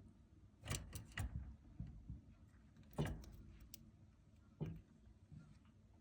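Scattered light taps and clicks from a pet bird moving about. There are three close together about a second in, then single ones around three seconds and four and a half seconds in, with no calls.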